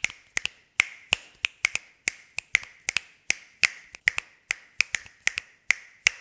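A quick, irregular series of sharp clicks, about three or four a second, each with a brief bright ring.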